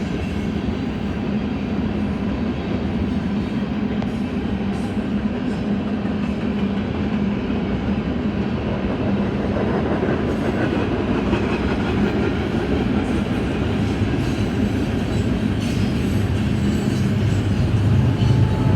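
BNSF train rolling past: a steady rumble of steel wheels on rails with faint clacking, growing a little louder near the end.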